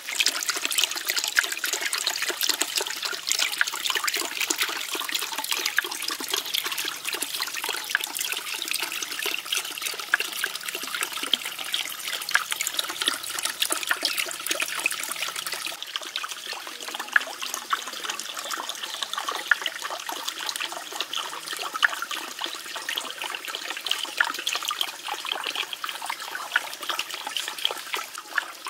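Water steadily splashing and trickling into a small pond from a bamboo spout and water wheel, a dense patter of small splashes that shifts slightly in tone about halfway through.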